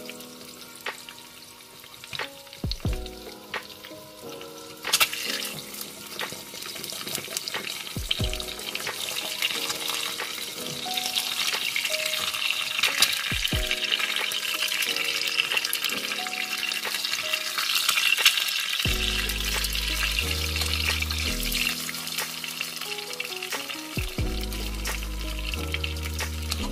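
An egg frying in oil in a small pan, sizzling. The sizzle swells about five seconds in and stays strong through the middle before easing slightly near the end.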